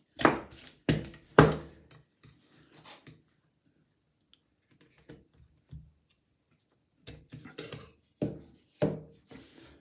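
Metal knocks and clicks from a mortice sashlock being handled and opened up, its case cover taken off to expose the levers. Three sharp knocks come at the start, small clicks follow, and another few knocks come near the end.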